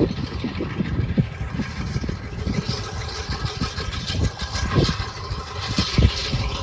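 Wind buffeting the microphone: uneven, gusty low rumbling with a fainter hiss above it.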